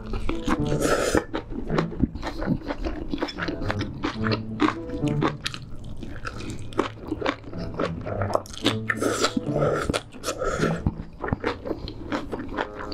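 Close-miked eating: mouthfuls of grilled pork belly, lettuce and noodles chewed with wet smacks and crunches, with noodles slurped. Soft background music runs underneath.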